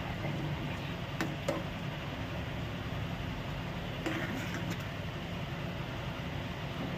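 A slotted metal spatula stirring thick cream masala around seekh kebabs in a pan, with a few light clicks against the pan about a second in and again around four seconds in, over a steady background hum.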